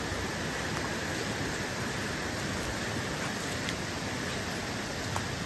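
Steady rushing of a rocky mountain stream flowing beside the trail, with a single sharp tick near the end.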